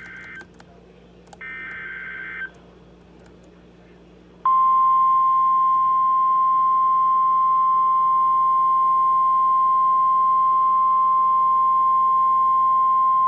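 Weather-alert broadcast tones: a short buzzy burst of SAME digital header data, then the NOAA Weather Radio 1050 Hz attention tone, one loud steady high tone held for about nine seconds before it cuts off. This signals the start of a new warning.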